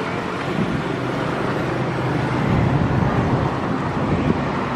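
Diesel engine of a CC 206 (GE C20EMP) diesel-electric locomotive running with a steady deep rumble and hum as the locomotive creeps forward while shunting passenger coaches.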